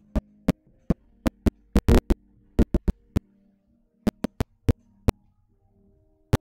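Faint sustained musical notes broken by loud, sharp clicks and pops at irregular intervals, about twenty of them.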